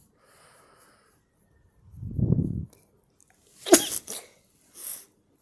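A person sneezing: a drawn-in breath about two seconds in, then the sharp, loud sneeze, followed by two short breaths.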